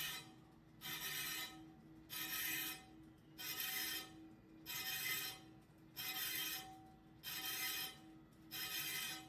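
Rhythmic rasping strokes on an alloy wheel rim during bend repair, about one stroke every 1.2 seconds, over a faint steady hum.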